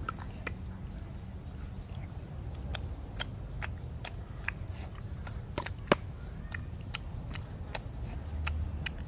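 Eating sounds: a scattering of small, sharp clicks and smacks as cooked field snails are picked from their shells with thin sticks and eaten, with one louder click about six seconds in. A steady low rumble runs underneath.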